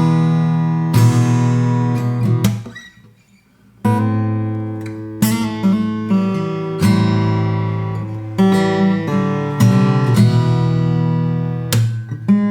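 Dame Lilies 70 CNA jumbo acoustic guitar with mahogany back and sides, strummed chord by chord, each chord left to ring out. The playing drops away about two and a half seconds in and comes back about a second later.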